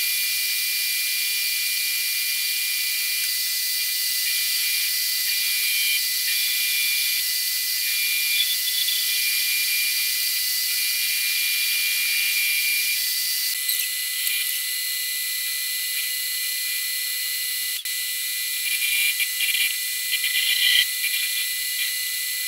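Metal lathe turning a flathead Ford flywheel while the tool takes a facing cut across it: a steady high-pitched whine and hiss. A few short uneven scrapes come near the end.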